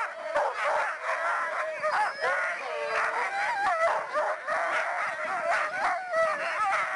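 Many harnessed sled dogs barking and yelping at once in a dense, unbroken chorus: the excited clamour of sprint dogs held at the start line, eager to run.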